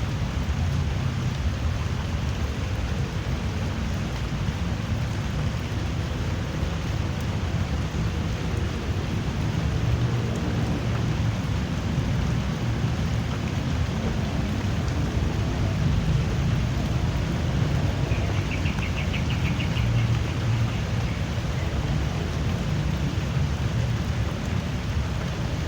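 Steady drizzling rain falling, an even hiss with a heavy low rumble underneath.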